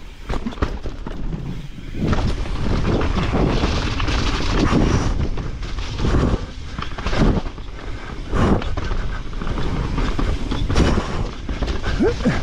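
Mountain bike ridden fast down a rough dirt trail: wind rushing on the camera microphone and tyres running over the ground, with repeated sharp knocks and rattles from the bike hitting bumps and landing jumps.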